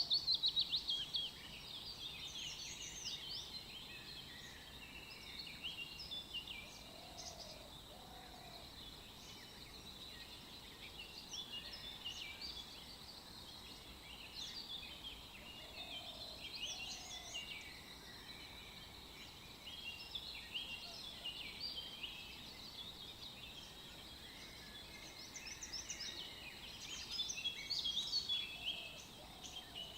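A chorus of many small songbirds chirping and twittering, with short high notes overlapping throughout. A lower two-note call comes in every eight or nine seconds.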